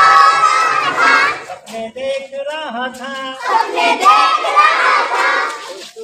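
A group of schoolchildren calling out together in two loud bursts, mimicking animal and bird voices, with a single voice sliding up and down in pitch between the bursts.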